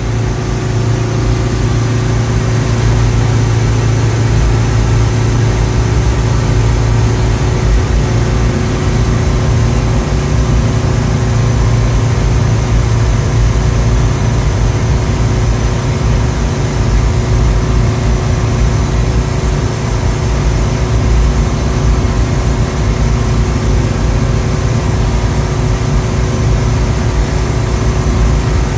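Nautique G23 wake boat's inboard engine running steadily under way at about 11 mph in surf mode, a steady low hum with a constant rush of wind and water over it.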